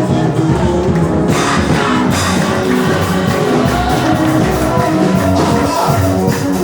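Loud live church music: singing over a band with guitar and bass.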